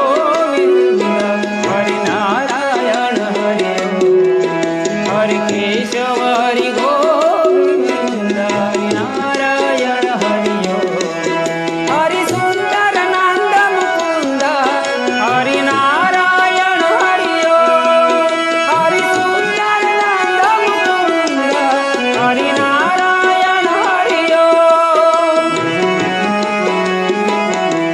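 Harmonium and tabla playing together: held reed chords under a melody that slides between pitches, with a steady tabla rhythm throughout.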